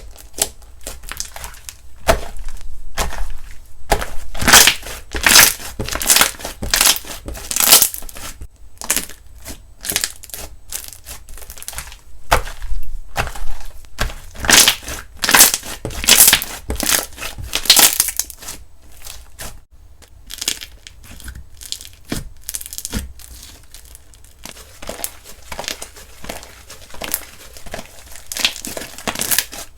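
Slime being squished, stretched and pressed by hand, giving a dense run of wet crackles and pops. It thins out to sparser pops for a few seconds past the middle, then picks up again.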